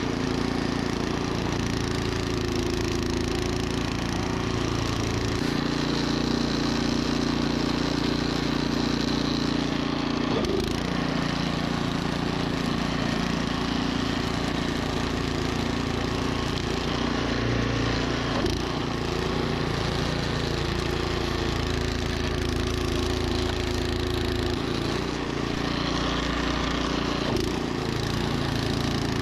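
Troy-Bilt snowblower engine running steadily under load while clearing deep snow. Its tone shifts a couple of times and there are two brief knocks.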